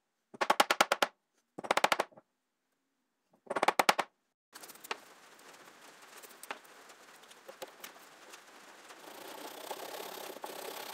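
Three short bursts of very rapid tapping in the first four seconds. Then a flush-cut pull saw saws the protruding dovetail key flush with the hardwood tabletop, a steady rasp with scattered clicks that grows louder near the end.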